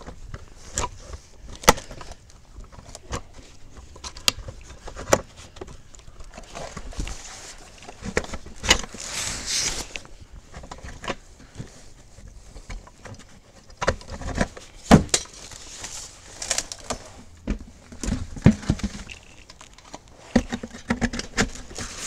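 Irregular clicks, knocks and scrapes of gloved hands working on a minivan's wheel and tire during a tire change, with a longer rustling scrape about nine seconds in.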